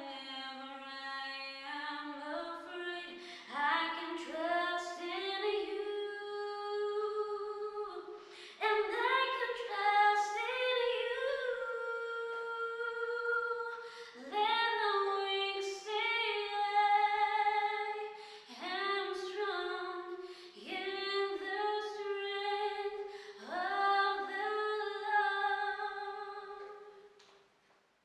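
A woman singing solo and unaccompanied, a slow song with long held notes. Her voice fades out near the end.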